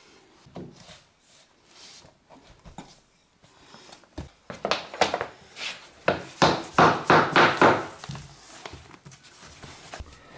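A laminate floorboard being cut with a hand saw: faint scraping at first, then a fast run of sawing strokes, about four a second, from about four to eight seconds in.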